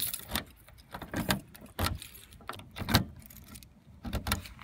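Keys jangling on a key ring while a key is pushed into and worked in a Honda Civic's door lock, with a string of irregular metallic clicks and rattles. The lock is jammed and won't turn.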